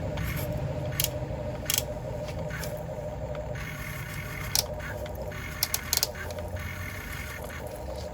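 Small motor whirring steadily, as in a toy excavator, with sharp plastic clicks scattered through.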